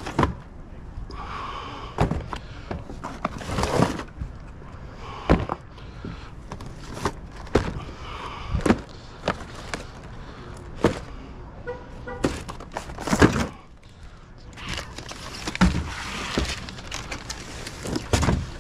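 Irregular clunks, knocks and rustling of snack and drink products and their packaging being handled while restocking a vending machine, with a short run of faint beeps about twelve seconds in.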